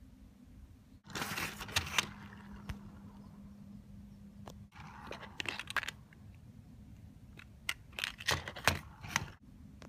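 Clear plastic boxes of .22 WMR cartridges being handled: several short bouts of rattling and clicking, with a few sharper knocks near the end.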